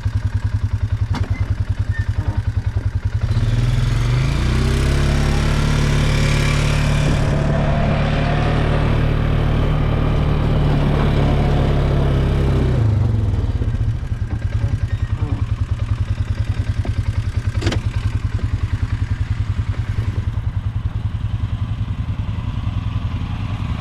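A small engine running at low revs, speeding up about three seconds in, holding the higher speed for about nine seconds, then dropping back to low revs. A few sharp clicks come later.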